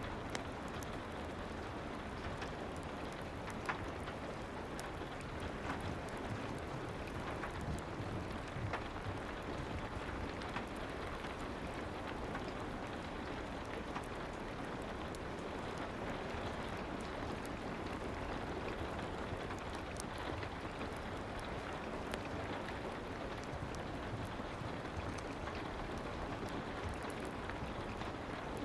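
Steady soft rain, with scattered faint clicks and crackles mixed in, as of a fireplace.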